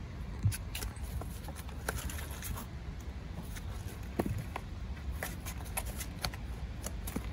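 Kittens scrabbling inside a cardboard box, their claws and paws scratching and tapping on the cardboard in irregular light scratches and ticks, over a steady low rumble.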